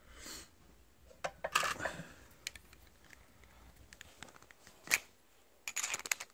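Handling noise from a laptop motherboard and loose processor being moved about by hand: scattered light clicks, taps and rustles, with one sharper click about five seconds in and a quick run of clicks near the end.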